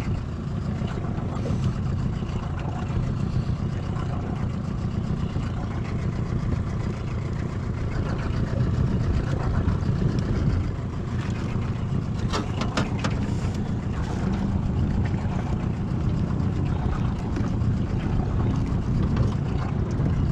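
Steady low rumble of wind and water around a small boat on choppy water, with a few short clicks or knocks about twelve to thirteen seconds in.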